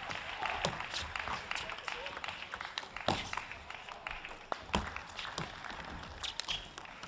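Arena crowd noise, a murmur of voices with some scattered applause after a point. Sharp clicks of the table tennis ball against bats and table cut through it, most of them in the second half as the next rally gets going.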